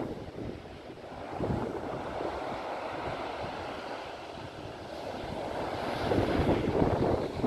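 Stormy surf washing up a sandy beach, a steady rushing hiss, with wind buffeting the microphone and growing louder in gusts in the second half.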